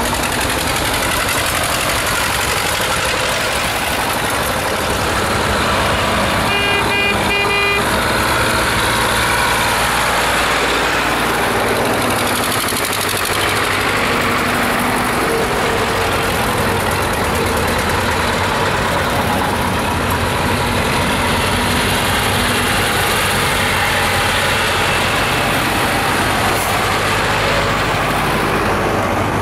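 Engines of a column of vintage tractors running on the road, with a vehicle horn giving a quick series of short toots about seven seconds in.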